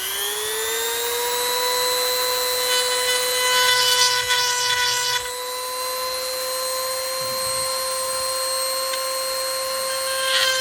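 Sharp Pebble 110-volt electric rotary tool coming up to a high speed and running with a steady high whine. Grinding rasps are added as its sharpening stone works against a chainsaw chain tooth, from about three to five seconds in and again near the end.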